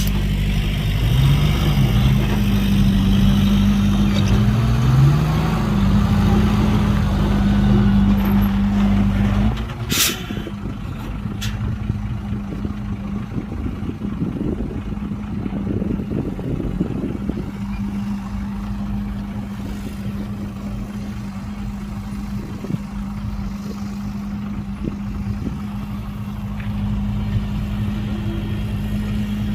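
Diesel engine of heavy earthmoving machinery working hard, its pitch rising and falling for the first ten seconds. About ten seconds in, a short sharp burst, with another a moment later, and then the engine drops back to a lower, steady run.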